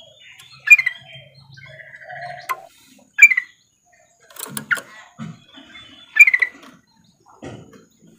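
Female yellow-vented bulbul (trucukan) giving short, sharp call notes in four quick bursts, a few seconds apart. This is the female's call to a male, played as a lure to get reluctant males to start singing.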